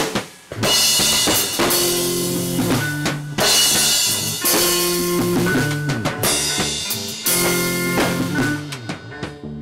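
Rock band music with drum kit, lead guitar and bass. A few separate drum hits lead in, then the full band comes in about half a second in and plays on.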